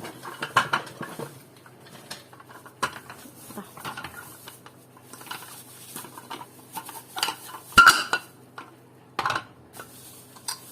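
Kitchen utensils and containers being handled, clinking and knocking irregularly, with rustling of the plastic bags they are still packed in. One sharp knock about eight seconds in is the loudest.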